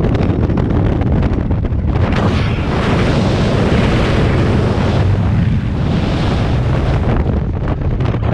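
Freefall wind rushing over a helmet-mounted camera, a loud steady rush that turns hissier from about two seconds in. Near the end the hiss thins out as the parachute opens and the fall slows.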